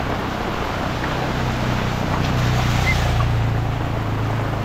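Heavy rain falling steadily and pattering on an umbrella held over the microphone, a constant rush of noise.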